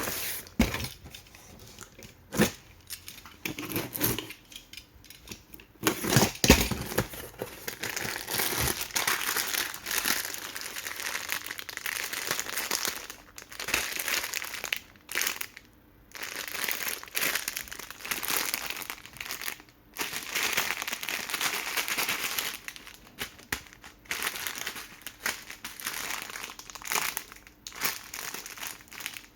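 Plastic packaging of instant noodle packs crinkling and rustling in irregular bursts as they are handled and unboxed, with sharp crackles and a few louder knocks, the loudest about six seconds in.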